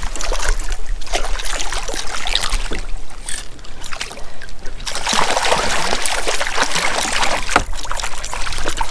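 Water splashing and sloshing beside a kayak as a hooked 18-inch rainbow trout thrashes at the surface while being brought in, heaviest about halfway through.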